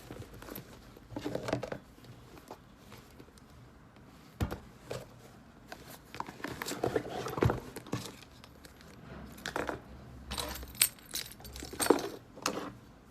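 Irregular clinks, knocks and rattles of small hard objects being handled, loudest about 7 s and 12 s in.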